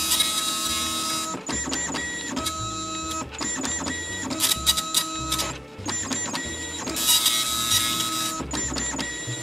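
Panasonic KX-P2123 24-pin colour dot matrix printer printing a colour graphic. The print head buzzes across the page in passes of one to three seconds, with short breaks between them and a steady whine under the buzzing.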